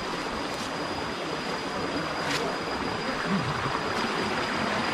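Mountain bike riding along a trail: a steady rush of wind on the microphone mixed with tyre noise, with a single click about two seconds in and a thin, steady high tone underneath.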